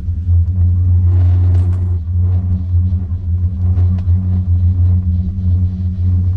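Steady low rumble and hum from riding a Nippon Cable hooded high-speed pair chairlift, with a brief louder hiss about a second in.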